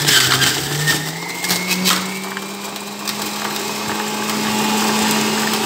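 Electric centrifugal juicer running as it shreds beetroot: a steady motor hum with crunching and clattering over it in the first two seconds. The hum rises in pitch about a second and a half in, then runs on level.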